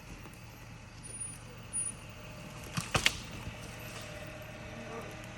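Motor vehicle running slowly with a steady low hum. A cluster of sharp knocks comes about three seconds in, with fainter clicks before them.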